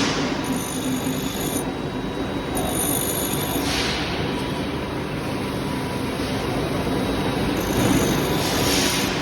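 Grinding machine running while a steel drill bit is ground against the wheel, a steady rasping grind. It swells into a brighter hiss twice, about four and nine seconds in.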